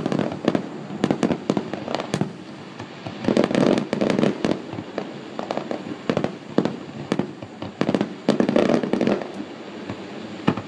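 Aerial fireworks display: a rapid run of sharp bangs from shells launching and bursting one after another, with heavier barrages about a third of the way in and again near the end.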